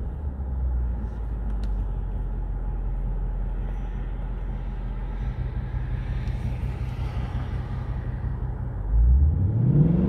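2020 Ford Mustang GT's 5.0-litre V8 idling steadily through its active exhaust, heard from inside the cabin. About nine seconds in it is revved sharply with Normal exhaust mode selected, the note jumping louder and rising in pitch.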